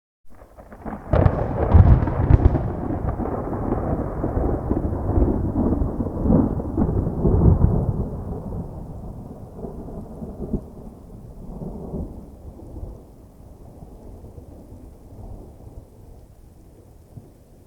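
A thunderclap: sharp cracks about a second in, then a long low rumble that slowly fades away.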